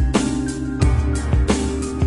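Music with a steady drum beat over sustained bass and held notes.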